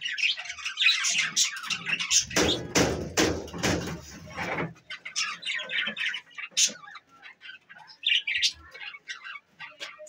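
Budgerigars chattering: many quick, high chirps and squawks. A low rustling noise runs for a couple of seconds, starting about two seconds in.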